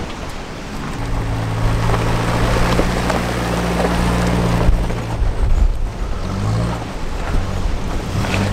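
A four-wheel-drive's engine running steadily from about a second in, easing off around six seconds and coming back with its revs rising and falling near the end, under heavy wind noise on the microphone.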